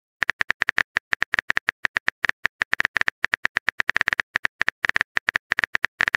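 Smartphone keyboard typing sound effect: a rapid run of short, identical clicks, one per keystroke, as a chat message is typed out.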